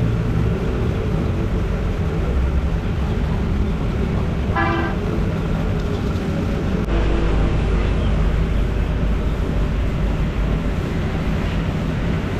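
Steady road-traffic rumble, with one short vehicle horn toot about five seconds in.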